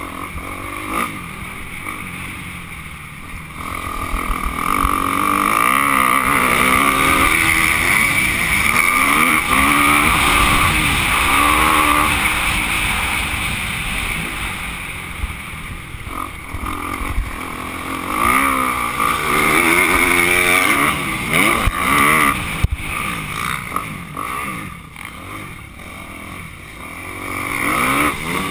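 Dirt bike engine revving up and down through the gears while riding a motocross track, with steady wind rushing over the microphone. In the later part, a few sharp knocks as the bike hits bumps or lands.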